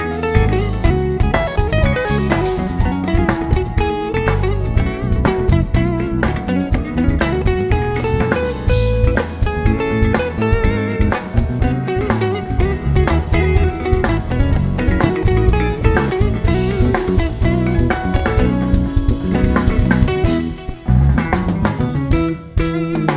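Live band playing an instrumental passage: guitar over a bass line and drum kit, with a couple of brief breaks near the end.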